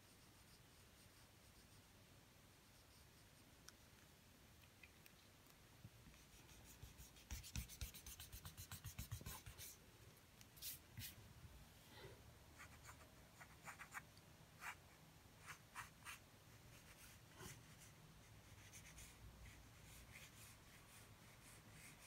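Faint scratching of a pencil on drawing paper while sketching. After a few quiet seconds comes a quick run of back-and-forth hatching strokes, then separate single strokes.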